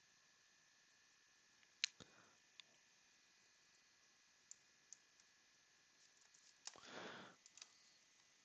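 Near silence broken by a few faint, scattered computer mouse clicks, the sharpest about two seconds in, and a brief soft rustle about seven seconds in.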